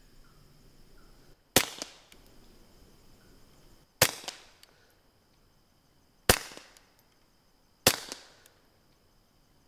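Four suppressed shots from a .22 Walther pistol fitted with a Tactical Solutions Cascade suppressor, each a sharp crack with a short tail, about two seconds apart. With the report this quiet, the sharpest part is the bullets striking the dirt downrange, along with the pistol's action cycling.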